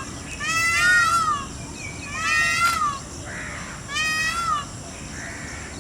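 Peafowl calling: three loud, high, nasal calls, each rising and then falling in pitch, about a second and a half apart.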